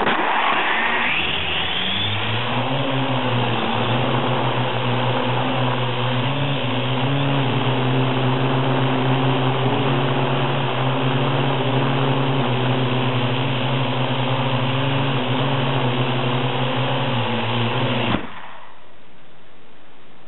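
Parrot AR.Drone quadcopter's electric motors and propellers, heard loud and close from a camera strapped to the drone. They spin up with a rising whine over the first two seconds, run at a steady pitch while the drone flies, and cut off suddenly about 18 seconds in.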